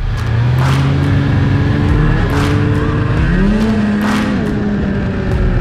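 Ski-Doo snowmobile engine running under way, heard from the seat. It revs up about three seconds in, holds for about a second, then eases back off.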